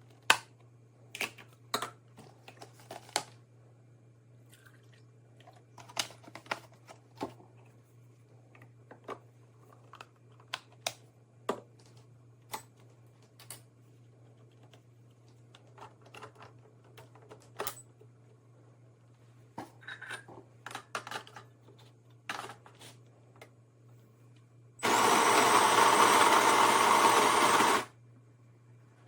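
Scattered clicks and knocks of handling, then a loud steady machine noise for about three seconds near the end from a De'Longhi Magnifica Start fully automatic espresso machine running briefly.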